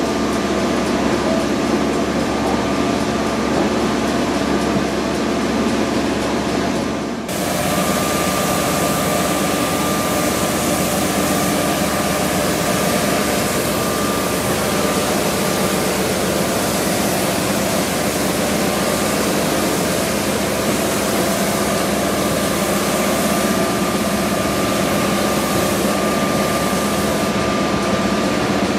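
Steady drone of heavy machinery with a thin high whine. About seven seconds in, a broad hiss joins suddenly and continues.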